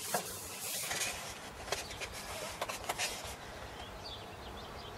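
Paper pages of a printed manual being flipped and handled, a crackly rustle for about the first three seconds that then dies away.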